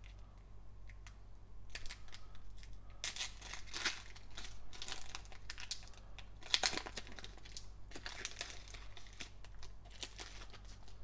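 Foil wrapper of a Panini Optic basketball card pack being torn open and crinkled by hand: a run of irregular crackling rustles, loudest a little past the middle.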